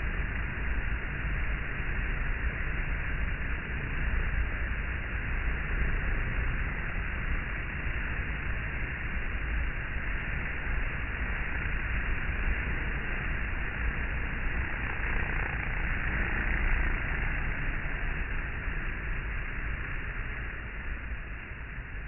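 Dense, steady buzzing of a honey bee swarm massed on the front of a hive, with a low rumble underneath; it fades out near the end.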